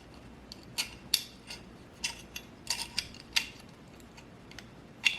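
Scattered sharp metallic clicks and taps, about seven of them, as small steel parts of an AR-15 trigger group and a pin tool are handled and fitted into the lower receiver.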